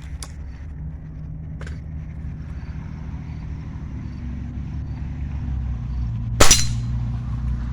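A single air rifle shot about six and a half seconds in, one sharp crack, over a steady low rumble.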